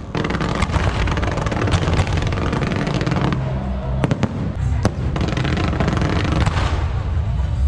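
Aerial fireworks shells bursting overhead in quick succession: a dense, continuous crackling and popping, with a few sharper cracks about four and five seconds in.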